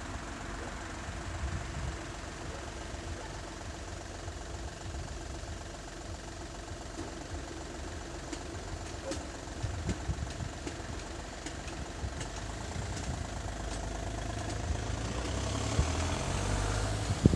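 A steady, engine-like hum with a low rumble at an FS64 railway level crossing whose barriers are down. About fifteen seconds in, the barrier arms are raised and the noise grows louder and fuller.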